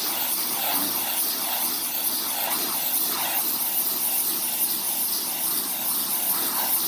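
Portland 1750 PSI electric pressure washer running, its water jet spraying against wooden fence boards with a steady hiss.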